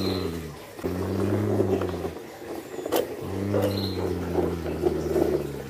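Low engine-like "brrrm" revving, rising and falling in pitch, made by mouth for a toy bus. It comes in three runs with short breaks between them, and there is a sharp click in the second break.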